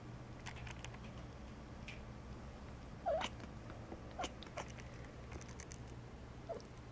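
Tabby cat chattering at a squirrel outside the window: a few short chirps, the loudest about three seconds in, mixed with quick runs of clicking.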